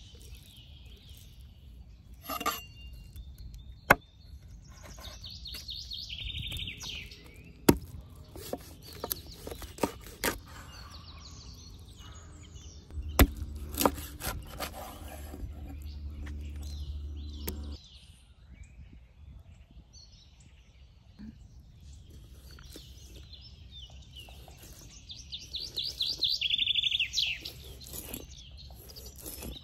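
A songbird sings two rapid trilled phrases, one early and one near the end, over scattered sharp knocks and clicks of handling work and a low rumble for a few seconds in the middle.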